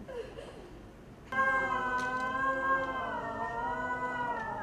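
A woman's voice holds one long, slightly wavering wailing note. It starts suddenly about a second in and carries on to the end.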